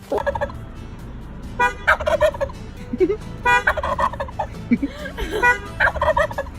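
Turkey gobbling: three long rattling gobbles about two seconds apart, with short lower calls in between.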